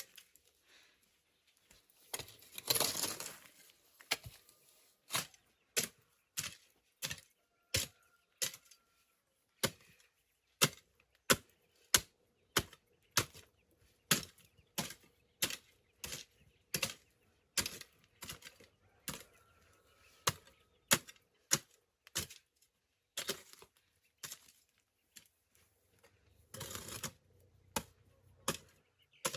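A hand tool striking over and over in a steady chopping rhythm, about three blows every two seconds, with a longer noisy rasp about three seconds in and again near the end.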